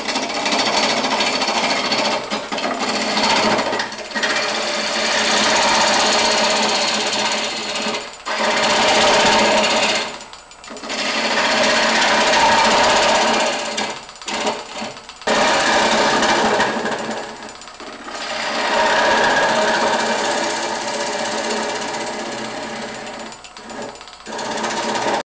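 A gouge cutting into a spinning hackberry bowl blank on a wood lathe while the inside is hollowed out: a continuous rough shearing noise of the tool taking off shavings. It is broken by several short pauses as the tool is drawn back between cuts.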